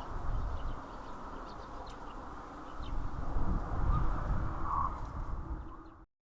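Wind buffeting the microphone with a low rumble that swells in the second half, under hens' soft clucking and faint chirps of small birds; the sound cuts out abruptly near the end.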